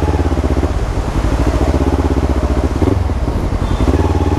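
Kawasaki Ninja 300's parallel-twin engine with a loud aftermarket exhaust, running at low revs as the bike rolls slowly; the note eases off briefly about a second in and again about three seconds in.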